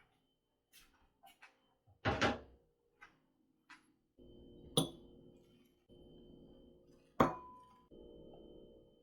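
Kitchen handling sounds: dishes and utensils clinking and knocking, with three louder sharp knocks and, in between, short stretches of a steady low hum.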